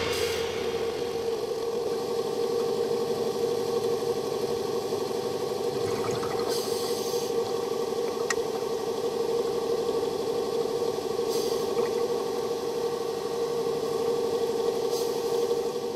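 Diver propulsion vehicle (underwater scooter) motor running underwater with a steady hum, and a few brief hissing bursts over it.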